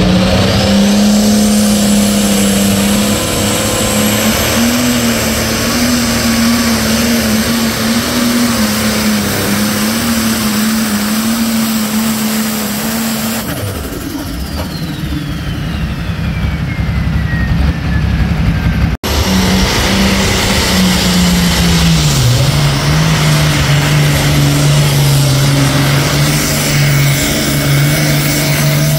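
Diesel pulling-tractor engines at full throttle under heavy load, dragging the weight sled; loud and steady. A falling whistle sounds in the middle, the sound breaks off briefly about two-thirds through, and the engine note then drops in pitch a few seconds later.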